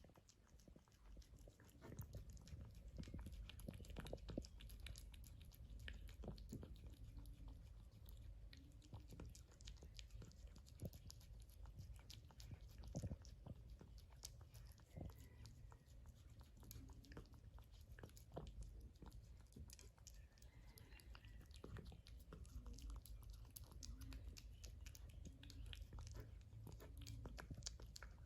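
Cat eating wet tuna-in-gravy food: quiet, steady chewing with many small irregular wet clicks and smacks.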